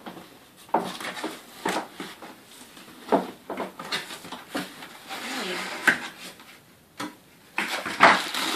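Cardboard packaging and packed parts being handled as a box is unpacked: a string of irregular knocks and clicks, with a stretch of rubbing about five seconds in and the loudest knock near the end.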